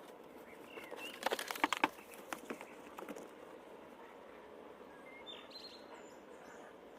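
Quiet outdoor ambience with a quick run of short knocks and clicks in the first couple of seconds, then a few faint bird chirps near the end.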